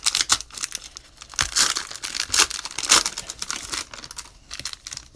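Cellophane wrapper of a trading-card cello pack being torn open and crinkled, in a string of short, irregular crinkles.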